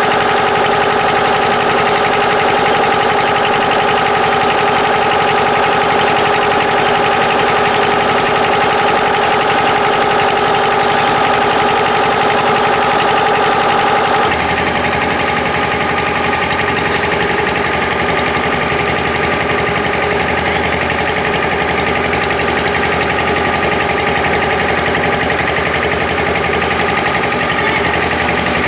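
An engine running steadily with a constant hum. About halfway through, its tone changes suddenly.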